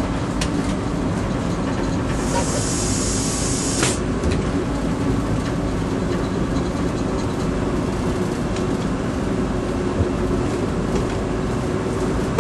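Toronto TTC streetcar running, heard from inside: a steady rumble of wheels and motors with a faint steady hum. About two seconds in, a hiss lasts about a second and a half, and faint clicks come now and then.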